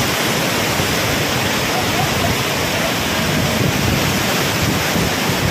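Steady rushing noise with no breaks or distinct events.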